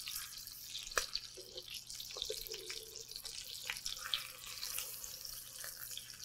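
Halibut fillets sizzling and crackling in hot fat in a skillet as they are turned over with metal tongs, the tongs clicking against the pan a few times.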